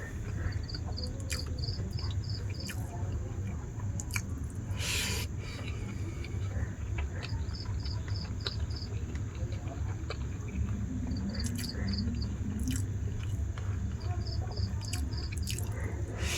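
Close mouth sounds of eating dal with jute leaves and fried pumpkin: chewing, with short wet clicks and smacks scattered throughout. Behind it, insects chirp in several short trains of even, high chirps, about four a second, over a steady low hum.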